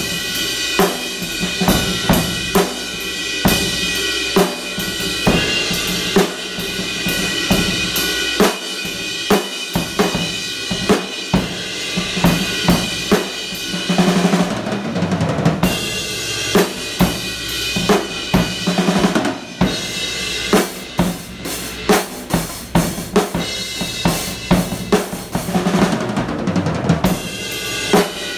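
Ludwig Centennial Zep Set drum kit played with sticks: a steady beat of bass drum and snare hits under ringing Paiste Giant Beat cymbals.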